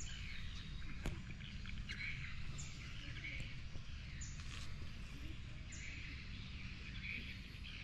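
Faint outdoor ambience: a steady low rumble with small birds chirping now and then.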